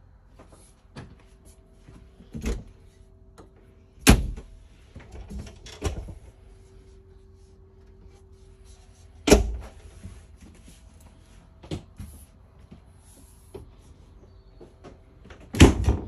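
Medicine cabinet door in an RV bathroom being opened and shut, giving a series of sharp knocks and clicks, the loudest about four seconds in, about nine seconds in and near the end. A faint steady hum runs underneath.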